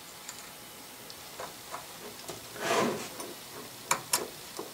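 Handling noise of a coiled-spring belt, made from an oil-seal spring, being fitted over the brass flywheel of a model steam engine and a model dynamo's pulley: scattered light metal clicks, a soft rustle about two and a half seconds in, and two sharp clicks near the end.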